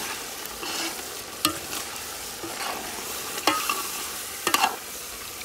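A metal ladle stirring thick duck curry in a large metal pot, scraping through the meat and knocking against the pot a few times with a short metallic ring, over a steady sizzle from the cooking pot.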